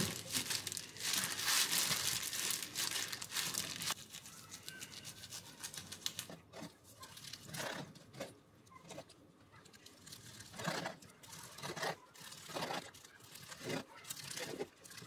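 A disposable plastic glove crinkling as hands press and squeeze a gimbap roll, for about the first four seconds. Then a knife cuts through the roll's seaweed wrap slice by slice, a short crunching cut about once a second.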